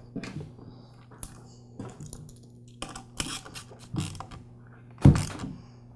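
Scattered light clicks and clatter of a metal support bracket and bolt being fitted into an air compressor's plastic housing with a hand tool, with one louder knock about five seconds in.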